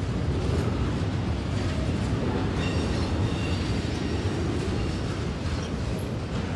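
Double-stack intermodal freight cars rolling slowly past: a steady rumble of steel wheels on rail, with a faint high wheel squeal about three seconds in.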